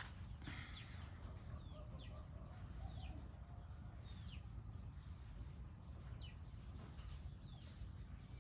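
A bird calling repeatedly in short, high, falling chirps, about one a second, over a faint low rumble of outdoor background noise.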